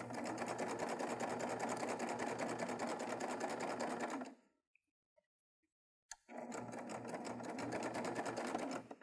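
Baby Lock Triumph serger stitching a cover stitch at an even, fast pace. It stops about four seconds in, then starts up again about two seconds later and runs until near the end.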